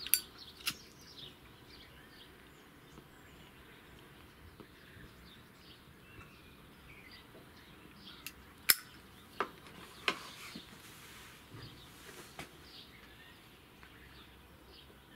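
Lighter clicking a few times as a tobacco pipe is lit, with sharp clicks near the start and a loudest one about nine seconds in. Birds chirp faintly in the background.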